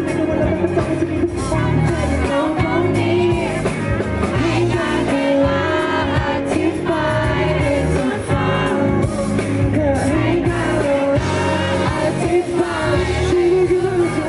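A male pop singer singing a Thai song live into a handheld microphone, with band accompaniment.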